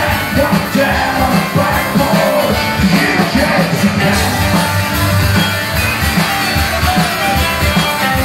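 Live rock band playing loudly through a PA: electric guitars over a steady drum beat.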